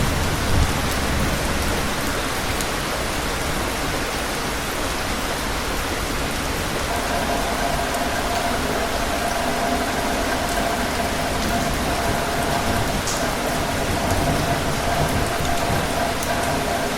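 Steady rain falling, with the last of a low distant thunder rumble dying away in the first couple of seconds. A faint steady hum joins the rain from about seven seconds in.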